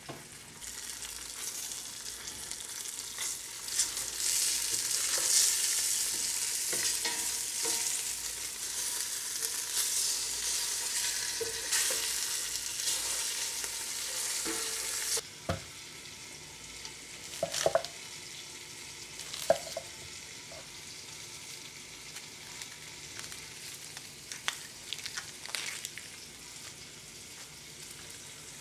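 Flour-coated short ribs searing in hot oil in a pot, sizzling steadily. About halfway through the sizzle drops suddenly to a quieter level, and a few short knocks follow.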